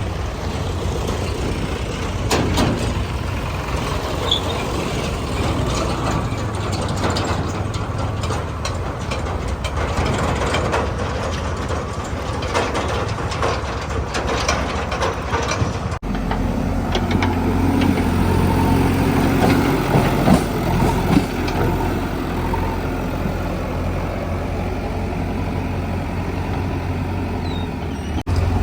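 Heavy diesel machinery at work: a backhoe loader's engine running steadily, with scattered clanks and knocks from the machine. The engine note changes abruptly about halfway through.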